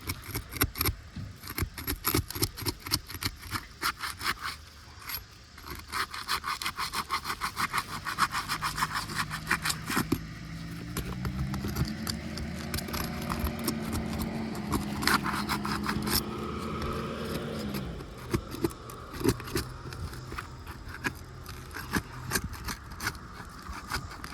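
Asphalt roof shingles being pried and scraped loose by hand, a rapid run of scraping and clicking strokes. A steady low drone sounds for several seconds midway, between spells of scraping.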